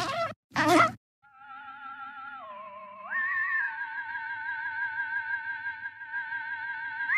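A couple of short swishing hits, then a sustained wavering electronic tone with a steady vibrato, theremin-like. It dips lower about two and a half seconds in, then slides up and gets louder and holds.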